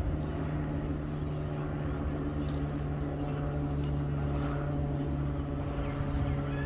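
Steady low machine hum, even in level and pitch throughout.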